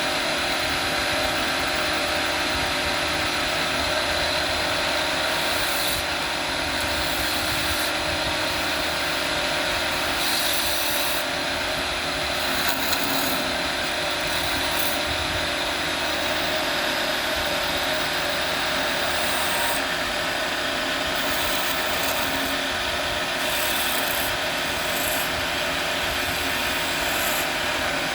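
Wood lathe running while a cutting tool scrapes a spinning wooden bottle cap: a steady motor hum under continuous scraping of the chisel on the wood, with brief hissing surges every few seconds as the tool bites.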